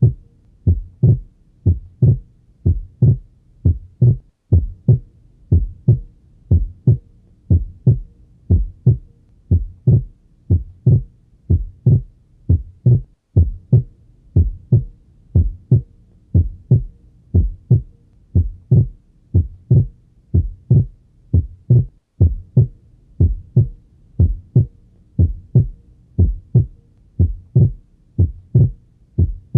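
Heart sounds on auscultation: the first and second heart sounds (lub-dub) repeat in a steady rhythm as dull low thuds. The second sound is split, the normal physiological splitting of S2.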